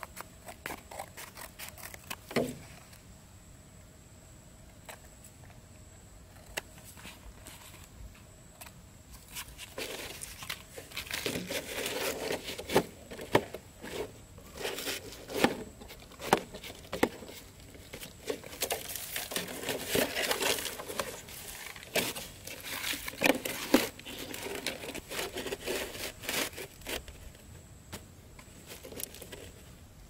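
Scissors snipping a piece of thin card with scattered clicks, then the card and a cut-down plastic bottle being handled, crinkling and crackling with sharp clicks for much of the time before easing off near the end.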